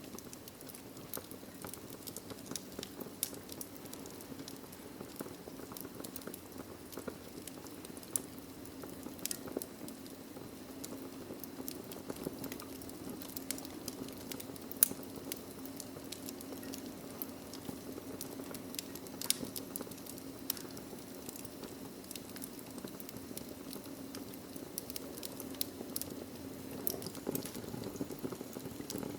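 Wood logs burning in a fireplace: a steady low rumble of flames with frequent irregular crackles and pops, a few sharper pops about halfway through.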